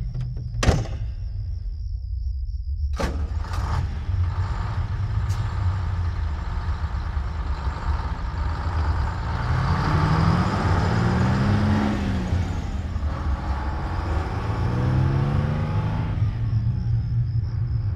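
A motor vehicle's engine running with a steady low rumble. A few sharp clicks come in the first three seconds. The sound swells louder about ten seconds in, its note rising then falling, and this happens again more faintly near the end.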